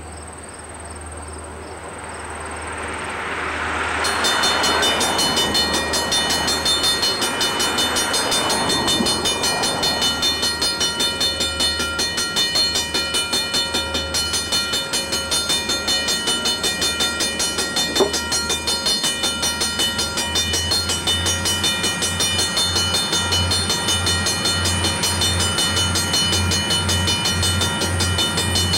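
Freight train with diesel locomotives approaching: engines running and wheels rumbling on the rails. The sound swells over the first few seconds, then holds steady, with a low rhythmic throb growing stronger later on and a single sharp click about two-thirds of the way through.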